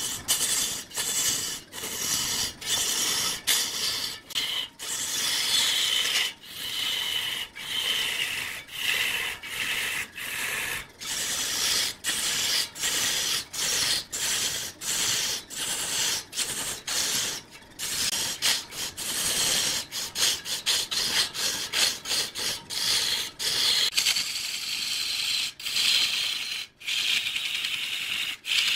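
Turning tool cutting into wood spinning on a lathe: a steady, hissing scrape broken by many short gaps as the cut breaks off and starts again.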